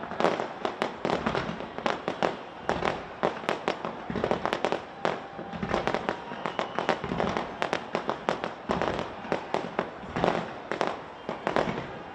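Fireworks display: a dense, continuous barrage of bangs and crackles, several a second, with no let-up.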